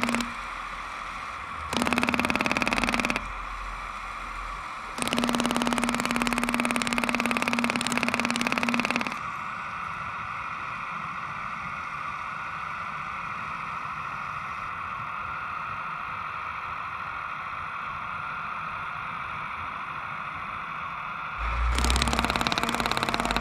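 Working scale-model jackhammer chattering against asphalt in bursts of one to four seconds, with a long gap in the middle and a last burst near the end. A steady electric motor whine from the RC machinery runs throughout.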